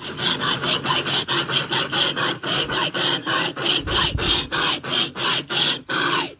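Cartoon steam-locomotive chugging sound effect for Casey Jr.: rhythmic hissing chuffs that start at about five a second and gradually slow.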